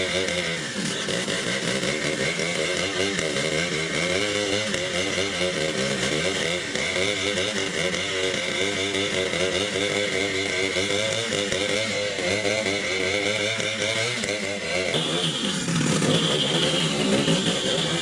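Petrol chainsaw running under load as it cuts into a large log, its engine pitch wavering up and down as the chain bites. About fifteen seconds in, the sound changes to another chainsaw sawing through a big log.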